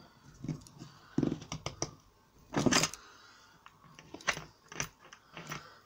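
Metallic clicks and knocks from a Fischer setting tool being squeezed on a hollow wall anchor in plasterboard and unhooked from its bolt, with one louder clack a little under three seconds in. It ends in a run of small clicks as the bolt is handled.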